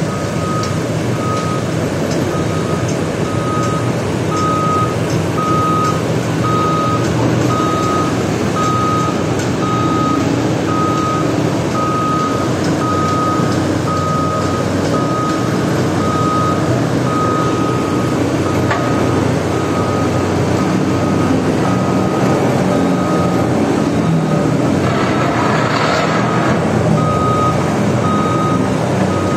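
Sany rotary drilling rig running steadily as it drills a bored pile, with its warning beeper sounding about one and a half times a second. About 25 seconds in, the beeping stops for a couple of seconds during a brief hiss.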